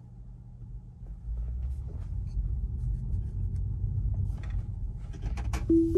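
Low road and tyre rumble inside a Tesla's cabin, growing about a second in as the car gets moving. Near the end a short chime sounds as Full Self-Driving is engaged.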